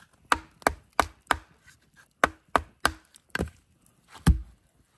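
A hatchet being struck with a hammer to split a long piece of firewood: about nine sharp knocks in quick runs of three or four, the last one near the end the heaviest.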